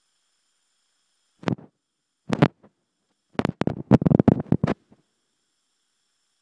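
Handling noise on a phone's microphone: three groups of short, muffled rubbing and bumping, the last and loudest lasting about a second and a half.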